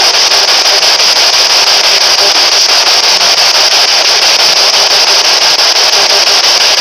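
P-SB11 spirit box radio sweeping rapidly through stations, giving a loud, steady static hiss finely chopped by the sweep, with no broadcast coming through; its user puts the empty static down to no radio signal reaching it underground.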